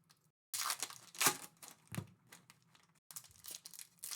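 Foil trading-card packs and cards being handled: a run of short crinkles and tearing swishes, about five or six in four seconds.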